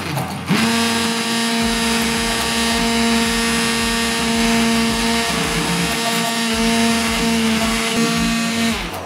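Hand-held electric immersion blender running in a pot, puréeing cooked berries (raspberries, blueberries and blackberries). After a short burst at the start it runs with a steady hum, dips briefly about halfway through as the blade meets the fruit, and stops just before the end.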